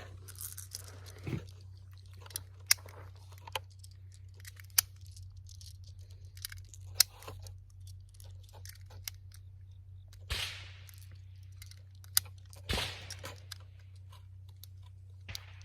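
9mm cartridges being handled and pressed into a carbine magazine: scattered sharp metallic clicks, irregularly spaced, with two short rustles about ten and thirteen seconds in.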